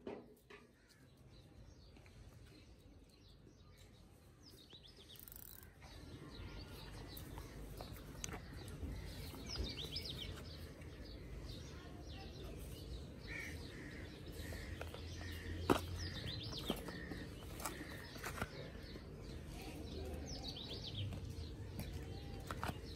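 Faint outdoor ambience with small birds chirping now and then over a low rumble that grows louder about six seconds in. A few sharp clicks, the loudest past the middle.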